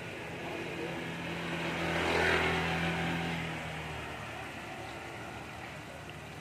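Battered chicken pieces sizzling in a wok of hot oil, with a motor vehicle passing by: its engine swells to the loudest point about two seconds in, then fades away.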